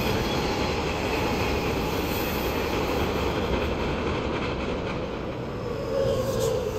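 JR West electric commuter trains at a station platform: a steady rumble of wheels and motors as one train pulls out and the next one arrives. About six seconds in, a squeal as the arriving train brakes.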